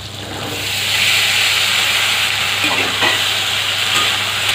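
Cut moringa drumstick pods tipped into hot oil in a steel karahi. The oil sizzles up about a second in and keeps sizzling steadily as the pods are stirred with a spatula.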